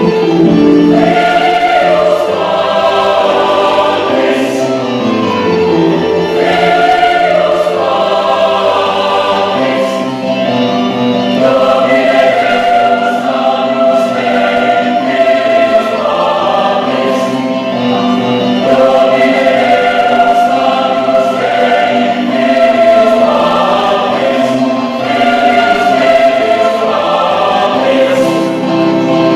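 Youth choir singing a Christian song, many voices together in harmony.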